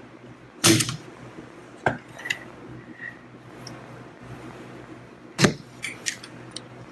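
Sharp metal knocks and clinks of tools and parts being worked inside a gearcase during disassembly: two loud knocks, one just under a second in and one about five and a half seconds in, with several lighter clinks between and after.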